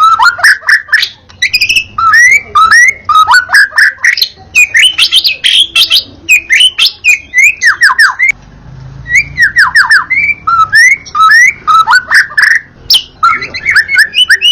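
White-rumped shama singing almost without a break: a rapid, varied stream of loud whistles, up- and down-sweeping notes and sharp clicks, with a short pause about eight seconds in.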